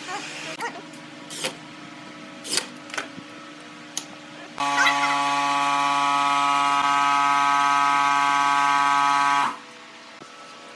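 A few sharp knocks, then an electric power tool's motor running steadily at one speed for about five seconds before cutting off.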